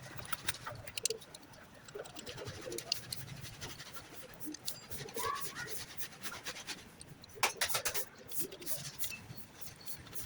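Scattered light clicks and knocks of hand tools and metal parts being handled during fuel injector fitting, with a quick cluster of clicks about seven and a half seconds in. Faint bird chirps in the background.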